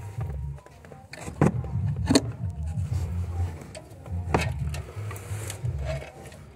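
Metal clinks and knocks as a Land Rover Defender's clutch pressure plate is handled and offered up against the flywheel over the clutch alignment tool: three sharp knocks, the loudest about two seconds in, with lighter ticks and a low uneven hum underneath.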